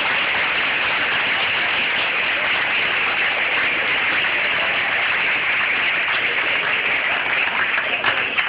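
Audience applauding steadily, a thick continuous clapping that thins into scattered separate claps near the end.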